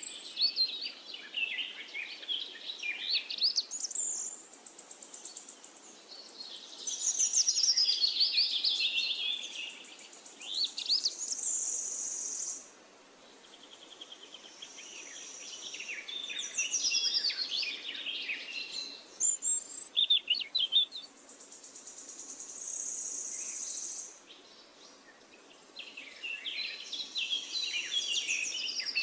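Small songbird, likely a finch, singing in bouts of fast twittering chirps and trills with high buzzy notes, broken by short pauses.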